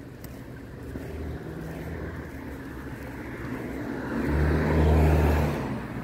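A motor vehicle driving past: a low engine hum and tyre noise build up, peak about five seconds in, then fade.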